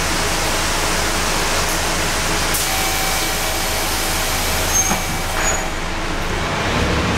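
Inside a Scania K230UB bus in heavy rain: a steady hiss of rain and road spray over the low drone of its Scania DC9 five-cylinder diesel. A faint steady whine is heard midway for about three seconds. The hiss eases after about six seconds.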